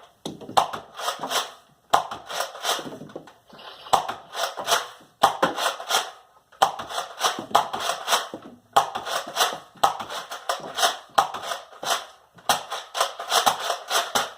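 Nerf Rival blaster being primed and fired again and again, a burst of sharp clacks about every second and a half.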